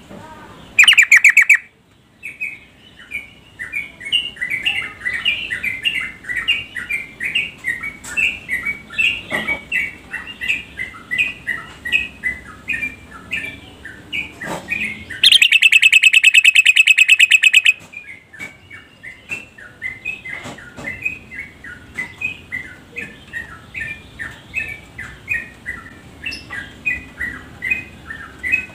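A female yellow-vented bulbul (trucuk) chattering in a quick, continuous run of short chirping notes, the call used to draw a male into song. A loud harsh buzz cuts in twice: briefly about a second in, and for about two seconds in the middle.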